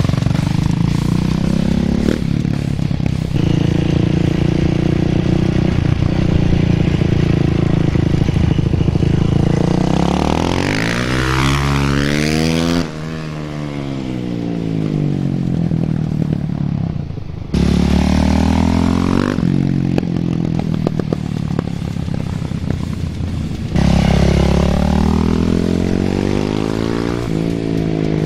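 Yamaha YZ450F's single-cylinder four-stroke engine running through a Pro Circuit Ti-4 titanium slip-on exhaust as the bike is ridden, revving up and down with the throttle. The sound level jumps abruptly a few times.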